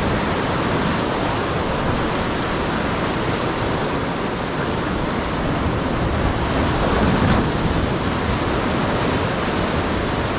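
Steady rush of wind and sea-water noise, with no distinct events.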